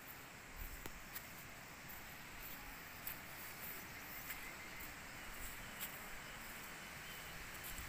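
Faint tropical-forest ambience: a steady high-pitched insect hiss with scattered short clicks.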